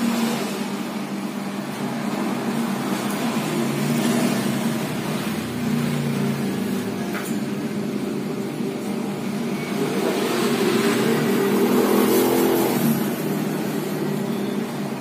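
Steady engine hum that grows louder for a few seconds after about ten seconds in.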